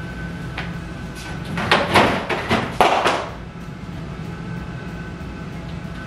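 Cans and bottles clattering against each other and the refrigerator's door shelves as they are taken out: a quick cluster of knocks and clinks about two seconds in, over a steady low hum.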